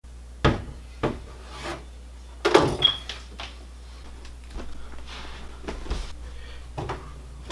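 Two sharp knocks, then a louder clatter with a brief high squeak as a bedroom door is opened about two and a half seconds in. Shuffling and a thump near the end follow as an office chair is carried into the room.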